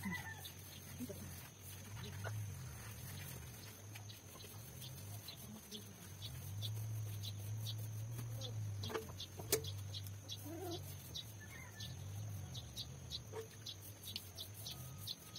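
Quiet ambient sound: a steady low hum with faint scattered ticks, and a few short animal calls, clucks like those of farmyard fowl, near the start and again after about nine seconds.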